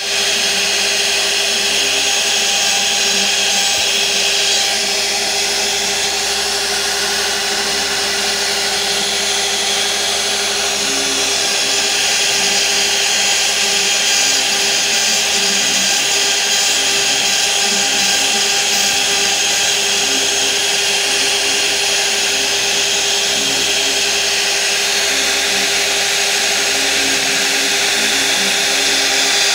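CNC router spindle with a tapered carving bit cutting relief into a wooden panel: a steady whine over the continuous hiss and rasp of the bit in the wood.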